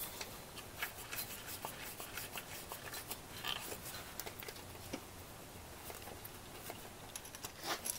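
Scattered light clicks and scrapes of water pump mounting bolts being threaded in by hand, metal on metal against the pump housing. The bolts are clean and go in easily.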